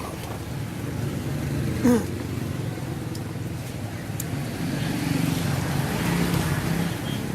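Steady road-traffic noise from passing vehicles, with a brief vocal sound about two seconds in.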